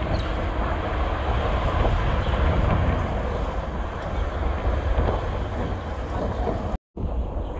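Jet airliner's twin engines at takeoff power as it climbs away, a steady rumble that swells and then eases slightly, mixed with wind buffeting the microphone. The sound drops out for an instant near the end.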